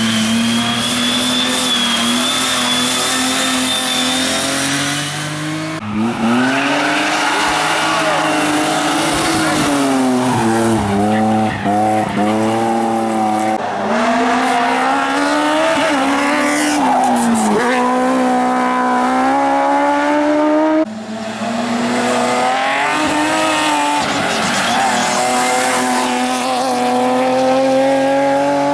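Hillclimb race car engines revving hard, the note climbing as they accelerate and dropping sharply at each gear change and braking point. The sound cuts abruptly to a different car three times.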